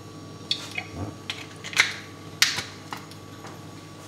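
Olive oil poured into a hot frying pan of bread sticks, crackling and spitting in a string of sharp, irregular pops.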